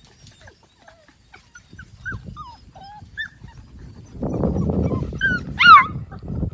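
Labrador retriever puppies whimpering in short, high, falling whines, then a scuffling noise from about four seconds in and one loud yip near the end.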